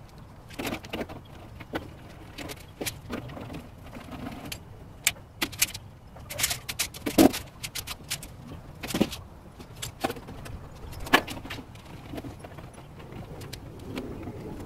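Metal parts of a dismantled gas grill being handled and set down: scattered clanks and knocks of sheet-metal panels and hardware, the loudest a little past the middle.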